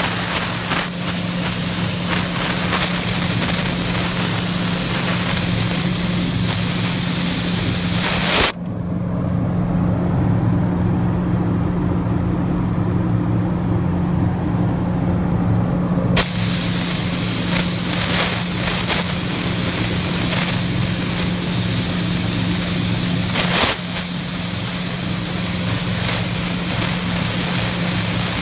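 Steady hiss of air in a paint spray booth over a constant motor hum. The hiss cuts out about a third of the way in and comes back several seconds later, while the hum runs on.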